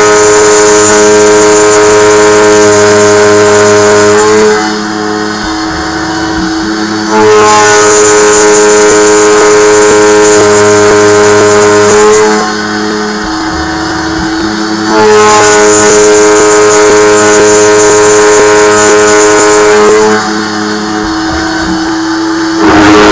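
Small CNC milling machine cutting 1018 steel with a quarter-inch two-flute carbide end mill at 5000 rpm, giving a loud pitched whine during each cutting pass. Three passes of about five seconds each, with quieter stretches of about two and a half seconds between them. The machinist takes the noise as a sign that the bit is going dull.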